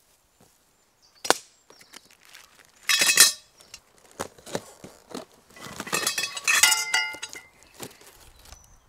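Aluminium chainsaw-mill rails clinking and clanking as they are slid out of their cardboard box, with a sharp knock about a second in, a ringing clatter around three seconds in, and a longer run of ringing clanks a little past halfway.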